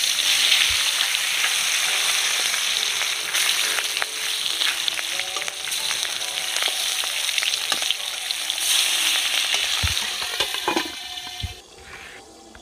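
Boal fish pieces frying in hot mustard oil in an aluminium kadai, a loud, steady sizzle with a few light knocks. The sizzle cuts off about a second before the end.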